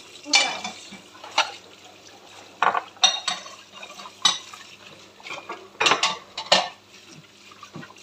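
Dishes being hand-washed in a kitchen sink: a plate and drinking glasses clink and clatter about seven times at irregular moments, with the tap running faintly underneath.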